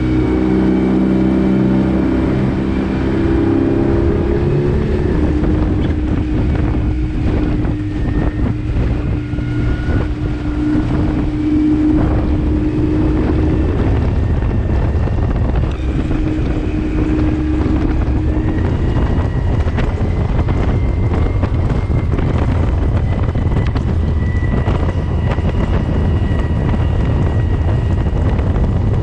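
Suzuki 15 hp outboard motor running hard, driving a small rigid inflatable dinghy up to top speed, with wind buffeting the microphone and water rushing past.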